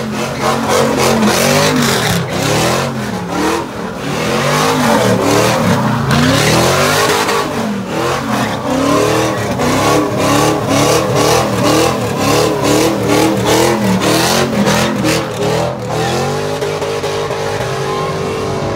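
Car engine revving hard in quick repeated rises and falls, about two a second, with tyre squeal, as a car does donuts or a burnout. Near the end the engine note holds steadier.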